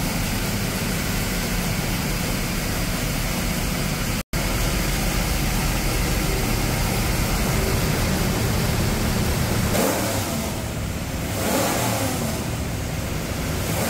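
Carbureted 427ci small-block Ford V8 with solid-roller cam and dry sump, running on a test stand. It runs steadily, breaks off for an instant about four seconds in, and the revs briefly rise and fall a few seconds before the end.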